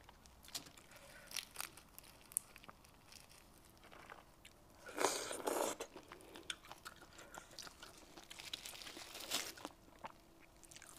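Close-miked crayfish eating: shells cracking and crunching as they are peeled and bitten, with chewing in between. The crunching comes as scattered sharp cracks, loudest in a burst about five seconds in and again around nine seconds.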